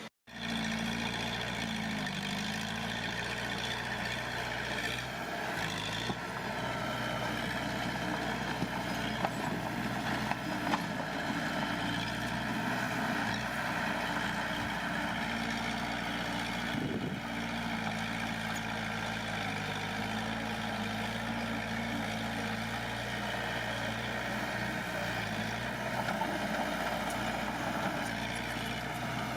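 Heavy earthmoving machine's diesel engine running steadily, its pitch sagging and recovering now and then as it takes load, with a few sharp knocks along the way.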